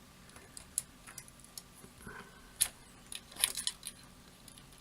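Scattered light clicks and small rattles of jumper wires and their plastic connectors being handled and pushed onto an OLED screen's header pins, with a busier cluster of clicks a little past three seconds in.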